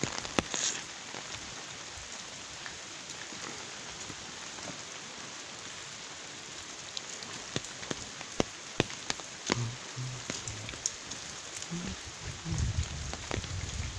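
Steady rain falling on wet ground and foliage, with heavy single drops tapping close by, more often in the second half. A low rumble comes in near the end.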